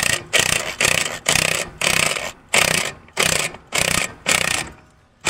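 Cordless impact driver run in short bursts, about two a second, turning a rusted scissor jack's screw to press a wood block down on a tractor turf tire and break the bead from the rim. The bursts stop shortly before the end.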